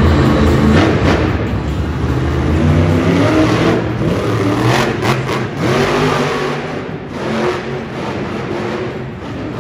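Grave Digger monster truck's supercharged V8 revving hard, its pitch climbing and dropping several times as the truck is driven around the dirt floor and pulls a wheelie.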